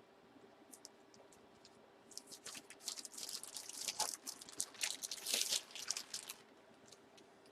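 Plastic bag being crinkled and torn open by hand, a dense crackling that starts about two seconds in and stops about six seconds in.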